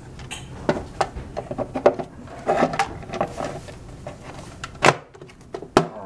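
Plastic hoverboard shell being pressed and fitted onto the frame by hand: a series of clicks and knocks of plastic against plastic and metal, the loudest about two seconds in and near the end.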